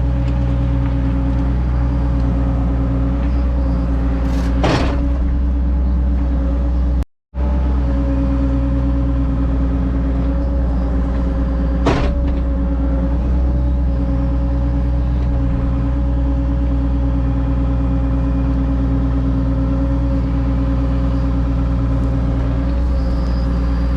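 Excavator's diesel engine running steadily at a constant speed, with a few sharp knocks at about five and twelve seconds and near the end.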